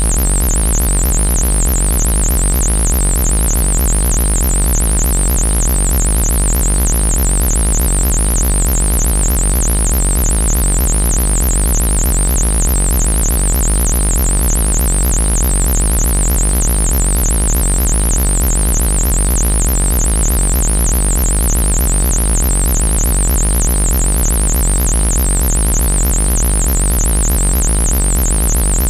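Synthesized alien buzzer sound effect: a loud, steady low buzz under a high-pitched whistle that warbles rapidly up and down, running unchanged.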